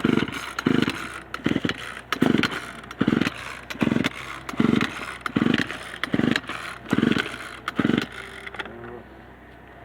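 Poulan Pro chainsaw's recoil starter being yanked again and again, about eleven short whirring pulls a little under a second apart, and the engine does not catch. The saw has sat unused for a while and may not be primed.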